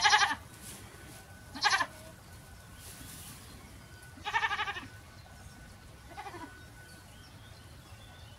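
A nanny goat in labour bleats four times. There are two short loud cries, then a longer quavering one, then a faint short one: the straining calls of a doe giving birth.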